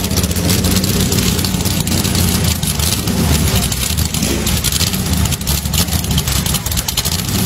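V8 engine of a Boss Hoss motorcycle idling, a steady low exhaust rumble with a fast crackle on top.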